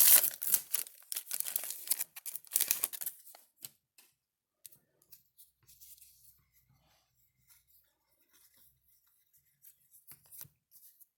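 A trading-card pack wrapper being torn open and crinkled for about three seconds, then faint scattered clicks and rustles as the cards are handled.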